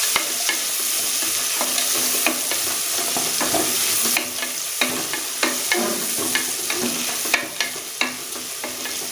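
Sliced onions frying in oil in a pressure cooker, sizzling steadily while a wooden spoon stirs them. The spoon scrapes the onions and knocks against the pot's sides in short irregular clicks, more often in the second half.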